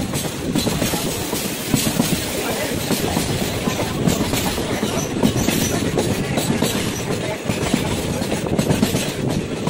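Passenger train running along the track, heard from an open coach window: a steady rumble and rattle of the coaches, with wheels clattering on the rails.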